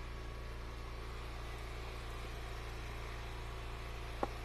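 Eastonmade Ultra log splitter's small gas engine idling steadily. About four seconds in there is one short, sharp wooden knock, as a split hickory piece is set on the stack.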